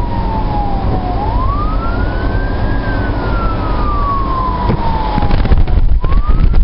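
Fire truck siren on a slow wail, its pitch falling, rising to a peak about three seconds in, falling again and starting to rise near the end. Heard from inside the truck's cab over loud engine and road rumble.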